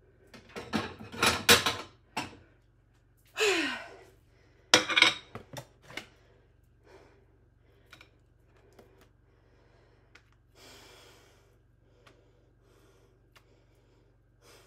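Dishes and a plate being handled and set down on a stone countertop: a quick clatter of knocks and clicks, a brief breathy sound falling in pitch, then more knocks and small handling ticks as bread and sandwich slices are laid on the plate.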